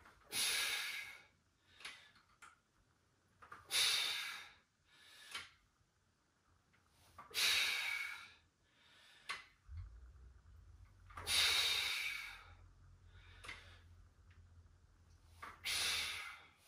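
A man's heavy breathing as he works through dumbbell bench presses: five strong, forceful exhales, one about every four seconds, with quieter breaths between them.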